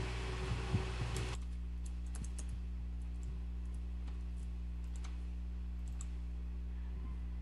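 Scattered computer keyboard keystrokes and mouse clicks over a steady low electrical hum; a background hiss cuts off abruptly about a second in.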